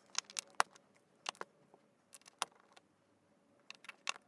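Small plastic Lego pieces clicking and clacking as they are pressed together, a string of sharp, irregular clicks.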